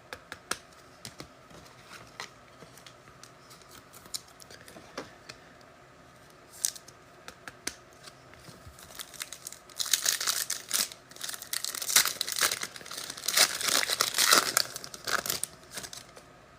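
Light scattered clicks and taps of trading cards being handled. Then, about ten seconds in, a card pack's foil wrapper is torn open and crinkled for several seconds.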